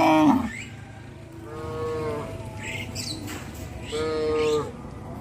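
Cattle mooing: a loud call that breaks off just after the start, then two shorter moos about two seconds apart.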